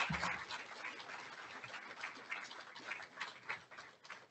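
Audience applause dying away to a few scattered claps.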